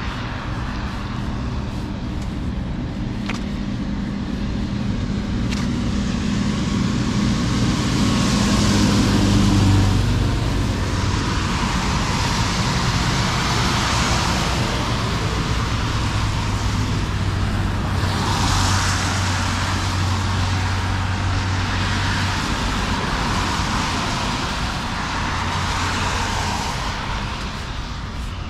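Road traffic: several cars pass one after another, their tyre noise swelling and fading, over a low steady engine hum. The loudest pass comes about a third of the way in.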